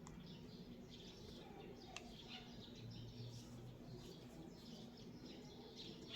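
Faint birds chirping in the background, many short chirps, over a low steady hum, with one light click about two seconds in.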